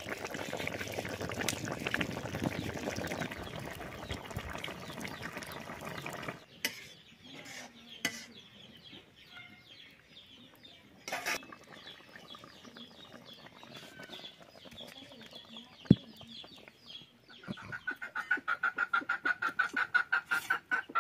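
Fish curry boiling hard in an iron kadai, bubbling for about the first six seconds. A few sharp knocks follow. Near the end a chicken clucks in a fast run of about six clucks a second.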